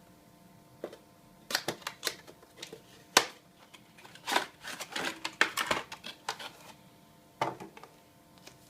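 Cardboard product box being opened and its contents handled: irregular clicks, taps and rustles, with one sharp snap about three seconds in.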